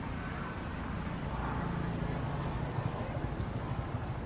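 Steady low outdoor background rumble, with no distinct event standing out.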